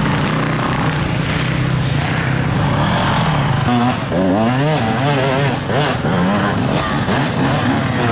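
Enduro dirt bike engines running and revving as riders force them up a steep, muddy forest slope. The revs rise and fall quickly in the middle.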